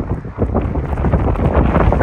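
Wind buffeting the microphone: a loud, irregular rumble and flutter.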